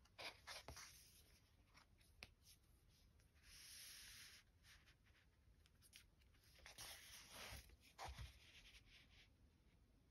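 Faint rustling of paper and soft taps as a picture book is closed and turned over by hand, a longer slide of paper a few seconds in and more handling near the end.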